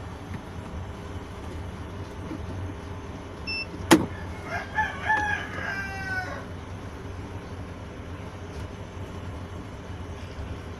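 A rooster crows once, a falling call lasting nearly two seconds, about four and a half seconds in. It comes just after a single sharp click, over a steady low hum.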